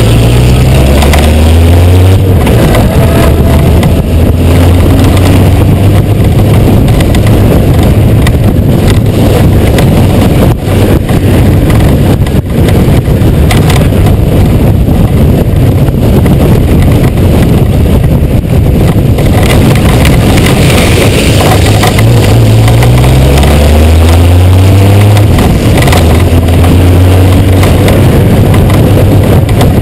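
Honda GoldWing 1500's flat-six engine running under way, rising in pitch as it accelerates just after the start and again about three-quarters of the way through. Heavy wind noise on the camera microphone runs over it.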